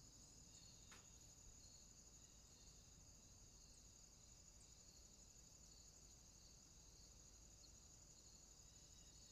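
Near silence: a faint, steady high-pitched trill in the background, with one faint click about a second in.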